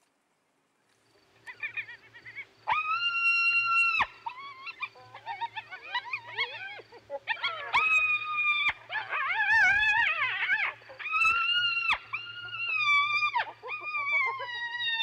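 Spotted hyena vocalising: a series of long, high, whining calls that sag slowly in pitch toward their ends, with a stretch of overlapping calls about midway whose pitch wavers rapidly. A faint steady low hum runs underneath.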